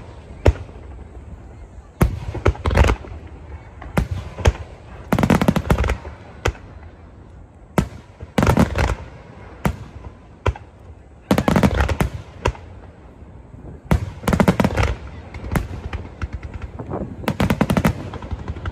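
Aerial fireworks shells bursting: sharp single bangs, with dense clusters of rapid crackling bangs about every three seconds.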